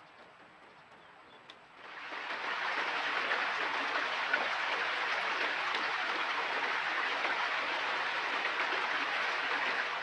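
A steady, even rushing noise with no separate events, which begins abruptly about two seconds in and holds.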